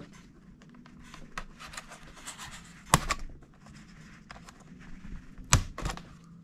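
Small scrapes and taps of fingers and tools on a MacBook Pro's aluminium lower case as it is pried loose, with two sharp clicks about three seconds apart as its retaining clips snap free.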